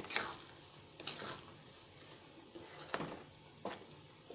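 Wooden spatula stirring sugared vermicelli in a metal kadhai, scraping and knocking against the pan a few times as the sugar is mixed in over low heat, with a faint sizzle beneath.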